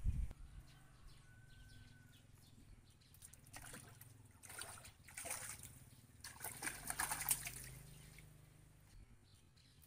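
A hooked fish thrashing and splashing at the surface of a small pond, in several bursts from about three and a half to seven and a half seconds in.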